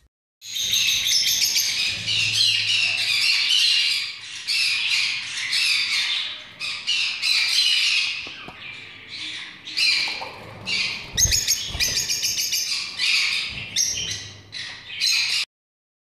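Lovebirds chattering with a nearly nonstop stream of shrill squawks and chirps. The calls break into shorter, choppier runs in the second half and stop abruptly shortly before the end.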